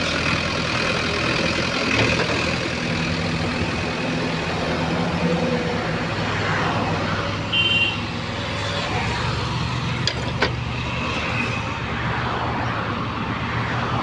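Diesel engine of a motor grader running steadily as it levels soil, with highway traffic passing. A short high beep sounds about seven and a half seconds in.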